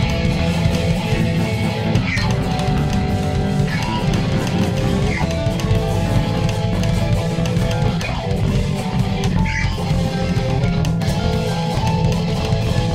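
A rock song playing steadily on guitar with a drum kit, in a stretch without singing.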